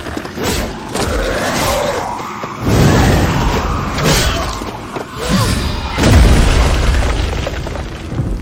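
Seedance AI-generated video soundtrack: heavy cinematic booms and crashes over dramatic music. The biggest hits come about three and six seconds in.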